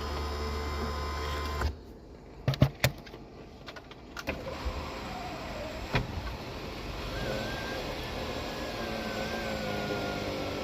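Electric motor of a car's power roof mechanism running with a steady hum, stopping abruptly a couple of seconds in; a few sharp clicks and knocks follow, then the motor whines again, wavering in pitch.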